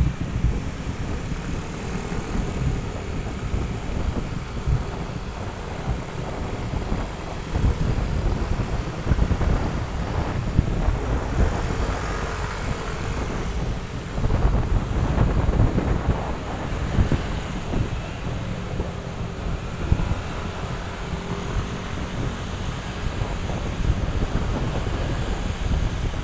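Wind buffeting the camera microphone, a heavy uneven rumble that swells around the middle, typical of filming on the move.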